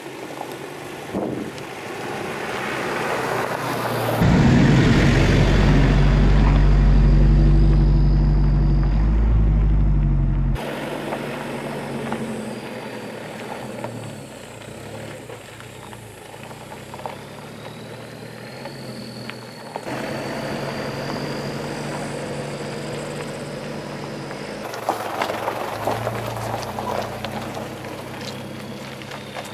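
Toyota Prado four-wheel drive coming down a rocky gravel track: engine and tyre noise build up as it approaches, then a loud low engine drone for several seconds as it passes close, cut off suddenly. After that, quieter steady driving noise of the vehicle on the track.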